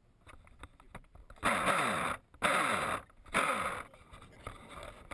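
RC speedboat's motor and propeller driven in three short throttle bursts of about half a second each, churning the water, the pitch dropping within each burst.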